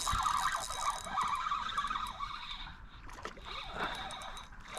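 Fishing reel being cranked to bring in a hooked speckled trout: a whirring, whining gear sound, strongest in the first second and then fainter.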